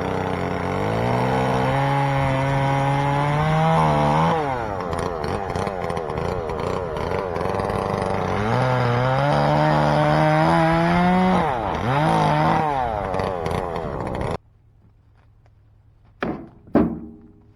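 Two-stroke chainsaw cutting oak limbs, revved high twice for about three seconds each and dropping back to a lower speed in between. It stops abruptly about fourteen seconds in, and two short knocks follow.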